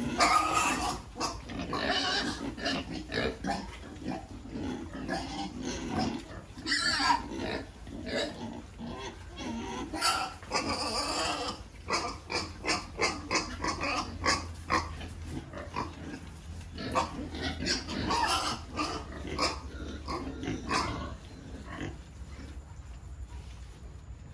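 A pen of two-month-old pigs grunting and squealing, many short, irregular calls overlapping, with louder, shriller bursts about seven and ten seconds in. It quietens near the end.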